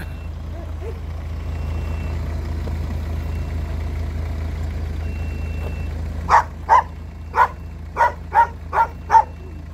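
A dog barks seven times in quick succession, starting about two-thirds of the way in, over a steady low engine rumble that runs throughout.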